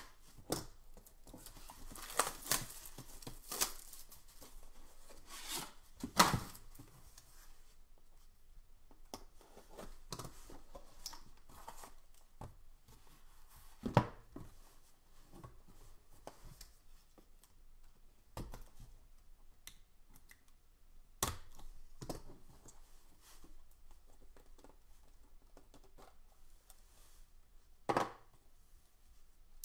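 Shrink wrap being torn off a trading-card hobby box, a run of crackling rips in the first few seconds. Then quieter handling of the box and its cardboard card holders, with a few sharp knocks, the loudest about halfway through and near the end.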